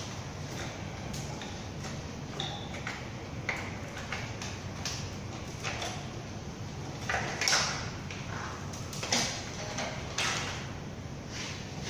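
Scattered clicks, scrapes and knocks of hand tools and metal parts being worked on a Toyota 2TR engine during dismantling, with a few louder scrapes past the middle, over a steady low workshop hum.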